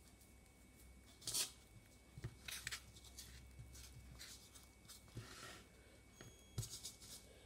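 Hands tossing and rubbing seasoning into pieces of boiled breadfruit in a woven wooden bowl: faint, scattered scrapes and rustles, the loudest about a second and a half in.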